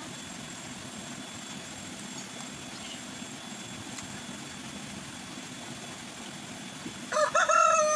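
A rooster crows once near the end: a few short wavering notes, then a long call held on one pitch. Under it runs a steady low background drone.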